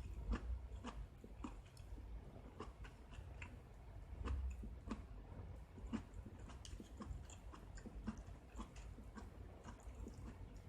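A person chewing mouthfuls of soy-sauce ramen with vegetables, with small crisp clicks and crunches about twice a second.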